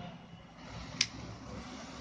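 A single sharp click about a second in, from the dispensing gun as two-part adhesive is squeezed out through its mixing nozzle in a bead on the roof sheet, over faint steady background noise.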